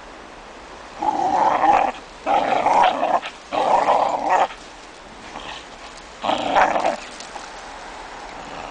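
Dog growling while it hangs from and tugs on a springpole rope, in four rough bursts of about a second each.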